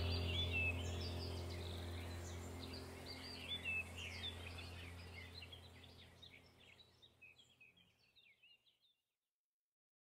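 Birds chirping over a low steady hum, all fading out gradually to silence near the end.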